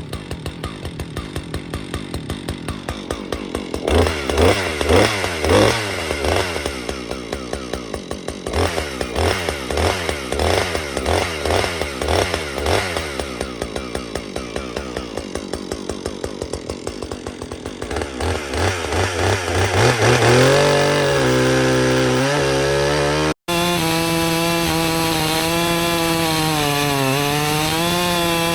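Husqvarna 562XP two-stroke chainsaw warming up: idling at first, then blipped in quick throttle bursts for several seconds, then held at full revs. After a brief break it runs at full throttle with the pitch wavering and dipping near the end, as the chain loads up in the wood.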